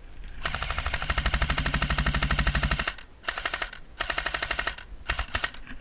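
Airsoft electric machine gun with a drum magazine firing on full auto: a rapid train of shots with the gearbox motor humming under it, one long burst of about two and a half seconds, then three short bursts.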